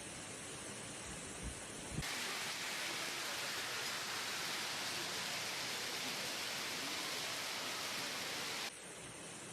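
Steady rushing noise of a violent storm, with two low thumps in the first two seconds. About two seconds in it cuts suddenly to a louder, brighter hiss that holds steady, then drops back to the softer rush near the end.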